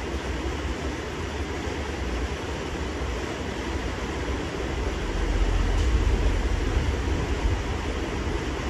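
A green crayon scratching on paper in quick back-and-forth strokes, over a steady low rumble that swells for a couple of seconds about five seconds in.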